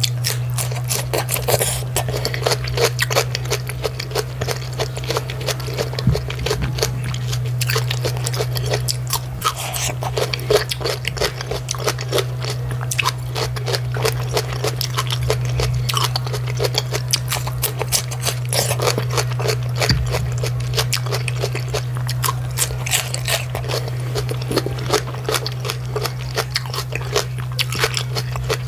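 Close-miked chewing of a mouthful of raw cabbage and cucumber: a dense stream of small crunchy clicks, over a steady low hum.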